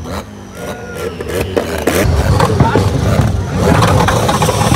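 A modified car's engine revving hard, with sharp cracks in the first second or two and a loud, heavy rumble from about two seconds in.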